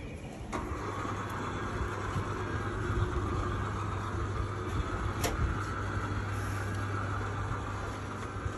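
City street traffic running steadily, with a constant low engine hum, and a brief sharp click about half a second in and another a little after five seconds.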